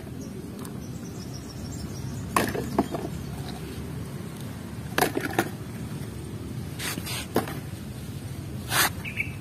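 Mud-covered plastic toy vehicles being handled on a concrete floor: several light knocks and scrapes at irregular intervals over a steady background hiss.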